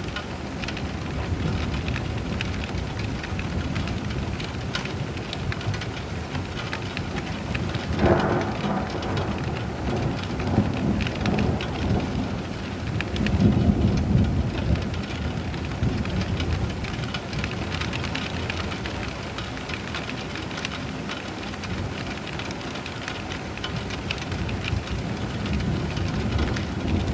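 Steady heavy rain with thunder: a sharp crack about eight seconds in, followed by low rolling rumbles that swell twice over the next several seconds.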